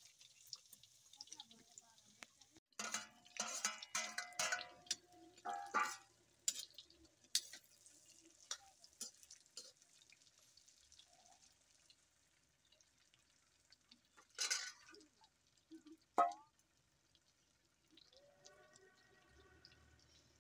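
Metal ladle stirring pork in an iron wok, scraping and clanking against the pan, over a faint sizzle of frying fat. There are bursts of scraping from about three to six seconds in, another scrape later, and a single sharp clank with a brief ring.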